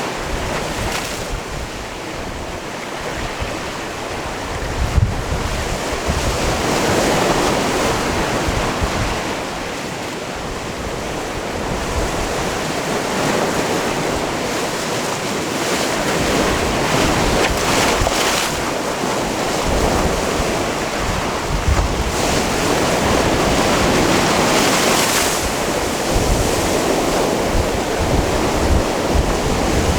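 Sea surf washing onto a rocky cove shore: a continuous rush of water that swells and eases every few seconds. Wind buffets the microphone at times.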